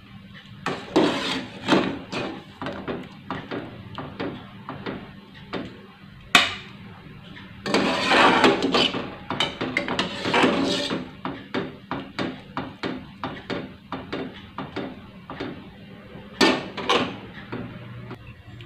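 Metal slotted spoon knocking and scraping against an aluminium saucepan as boiled chillies, shallots and tomato are scooped out of the water, with a few louder clanks.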